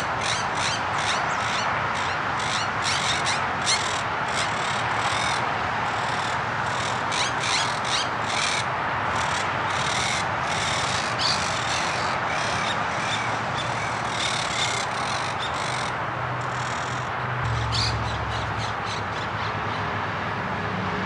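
A flock of monk parakeets squawking, many short harsh calls several a second, over a steady background noise, with a brief low rumble near the end.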